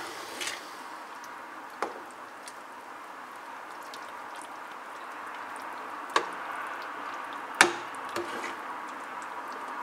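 Metal ladle stirring thick soup in a pot, with a few sharp knocks of the ladle against the pot, the loudest about three-quarters of the way through, over a steady hiss.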